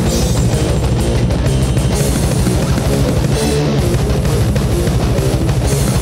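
Death metal recording: distorted guitars and a drum kit playing steadily and loud.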